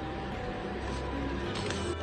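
Soft background music with faint held notes.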